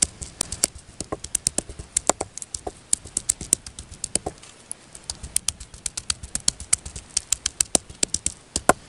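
Garlic cloves being pounded with a hand-held stone on a wooden block: rapid, uneven knocks, several a second.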